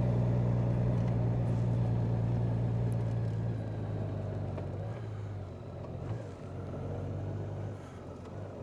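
Honda Gold Wing's flat-six engine running at low, steady revs as the motorcycle climbs a narrow lane, then easing off and getting quieter in the second half.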